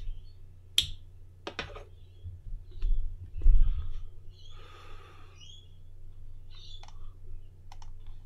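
A few sharp computer mouse clicks, some low bumps around three seconds in, and a breathy exhale about five seconds in, over a steady low electrical hum.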